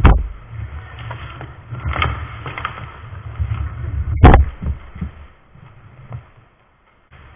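Inline hockey play at the net, heard close up: a low rumble and clatter of skates and sticks on the plastic rink floor, with two loud knocks, one right at the start and the loudest about four seconds in during a scramble in front of the goal. It dies away near the end.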